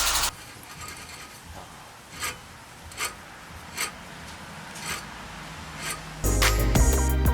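A handful of short rasping, scraping strokes, about five of them roughly a second apart, at a quiet level. Loud background music cuts off just after the start and comes back in about six seconds in.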